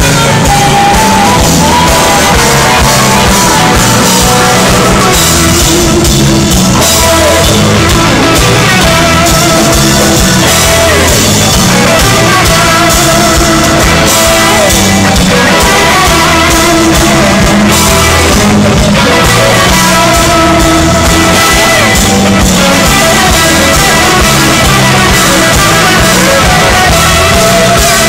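Live electric blues-rock band playing loud: several electric guitars, bass guitar and a drum kit in a dense, unbroken sound.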